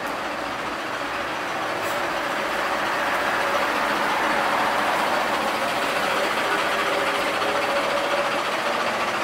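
Steady rushing noise of passing vehicles that swells gently toward the middle and stays up.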